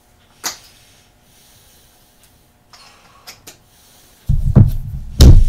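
A sharp click, a few faint ticks, then loud, deep bumps and rubbing close to the microphone near the end, peaking twice.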